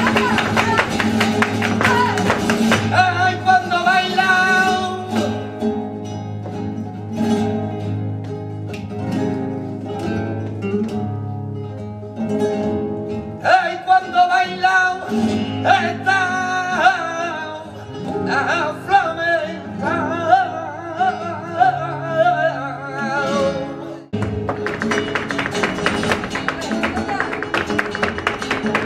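Live flamenco: several Spanish guitars with a voice singing long wavering lines, over rhythmic hand-clapping (palmas) punctuated by sharp accents. Near the start, and again from a sudden change about 24 seconds in, the singing drops out for fast, dense rhythmic strumming and clapping.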